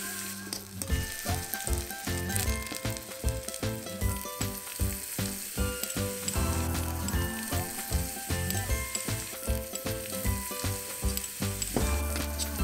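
Diced tomato and onion sizzling in a miniature brass pan, with a tiny metal spoon stirring and scraping against the pan in quick repeated strokes. Soft background music plays underneath.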